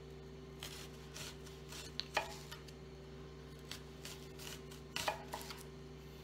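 Chef's knife slicing a red onion on a plastic cutting board: irregular knocks of the blade against the board, loudest about two seconds in, with a quick run of knocks near the end, over a faint steady hum.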